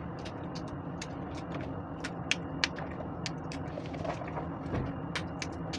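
Fresh green beans snapped into short pieces by hand: about a dozen crisp snaps, irregularly spaced, with a gap of a second or so before the last few. A steady low hum runs underneath.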